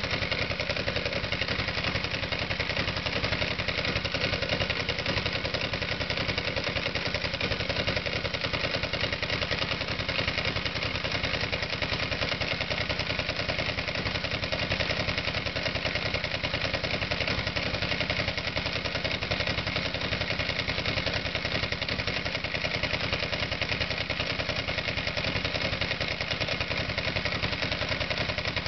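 Ducati L-twin motorcycle engine idling steadily with a misfire: the spark for the horizontal cylinder's plug grounds out along the plug boot instead of firing across the plug.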